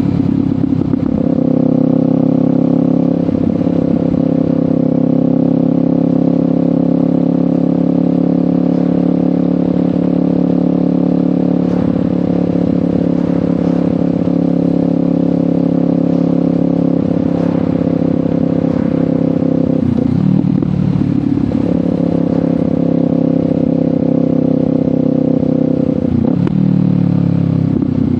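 Kawasaki Ninja 500's parallel-twin engine through a LeoVince GP Corsa Evo slip-on exhaust, running at a steady cruise while riding, with a few brief breaks where the pitch drops and picks back up, as at gear changes.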